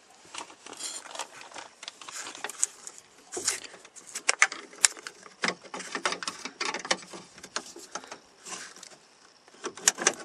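Irregular sharp clicks and small rattles of metal linkage rods and plastic retaining clips being worked free of a truck's inside door handle.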